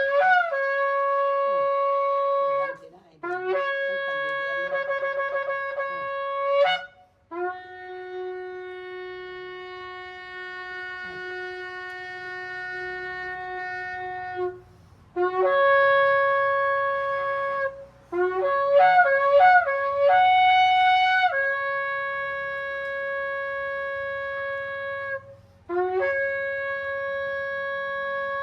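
Shofar (ram's-horn trumpet) sounding a series of long held blasts. Most blasts begin with a brief lower note that jumps up to the main pitch. In the middle comes one long, lower blast of about seven seconds, and a few quick broken notes follow a little later.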